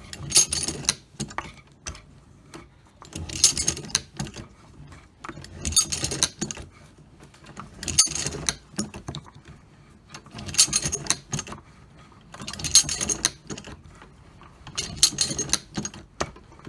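Metallic clinking and rattling of brass .303 blank cartridges and the steel mechanism of a 1917 Maxim/Vickers belt filling machine as rounds are fed into a canvas ammunition belt. The clatter comes in about seven bursts, each about a second long and spaced about two seconds apart.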